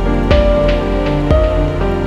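Background music: sustained chords over a beat that strikes about once a second.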